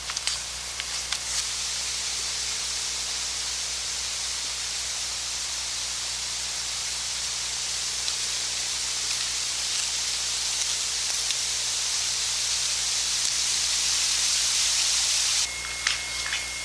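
Steady loud hiss with a low hum underneath and a few faint clicks. Near the end the hiss drops off suddenly and a steady high tone starts.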